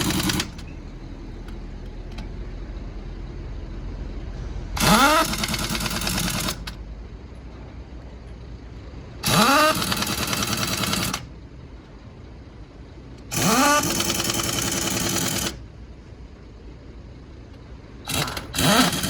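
Pneumatic impact wrench run in four bursts of about two seconds each, a few seconds apart, each spinning up with a rising whine, with a short extra blip near the end: wheel nuts being run on or off during a truck tyre change. A steady mechanical hum carries on between the bursts.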